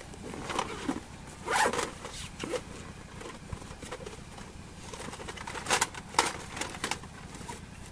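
Rummaging in a nylon sports bag: fabric rustling and zip sounds in short bursts, with a few sharp clicks as a plastic Nerf blaster is handled and pulled out.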